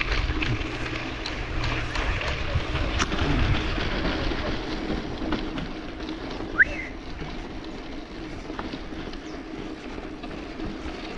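Ride noise from a 29er mountain bike rolling over a dirt road: tyres on the dirt, small rattles from the bike and wind on the microphone, louder in the first few seconds. A single short, sharp squeak rises about two-thirds of the way through.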